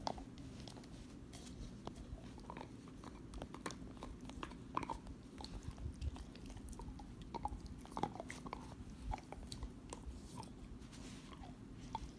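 Pit bull chewing a hard chew bone: irregular clicks and crunches of teeth gnawing on it.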